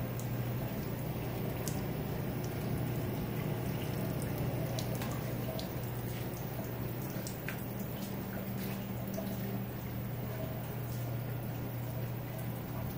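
Water dripping, with scattered irregular drips, over a steady low hum, beside an overflowing sewage ejector basin.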